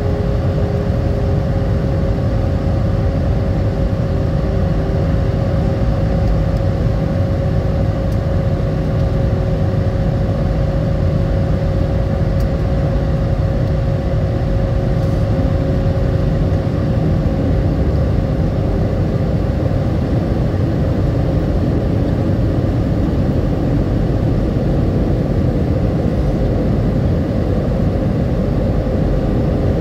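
Jet airliner cabin noise in flight on descent: a loud, steady rush of engine and airflow noise, with two steady hums running through it.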